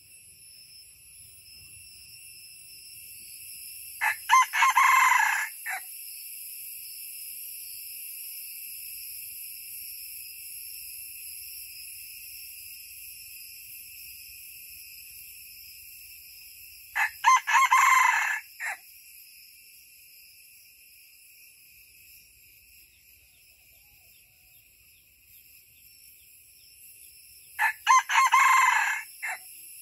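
Red junglefowl rooster crowing three times, about every twelve seconds, each crow short at about a second and a half. A steady high-pitched insect chorus runs underneath.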